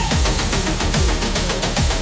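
Dark techno music: a heavy kick drum whose thumps drop in pitch, under fast regular hi-hat ticks and a dense layer of noisy synth sound.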